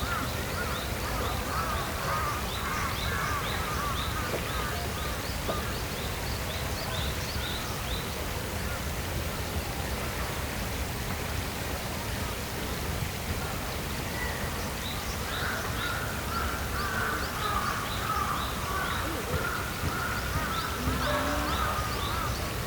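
Outdoor nature ambience of several birds calling: quick runs of short high notes, several a second, and lower calls that fade out after the first few seconds and return about two-thirds of the way through.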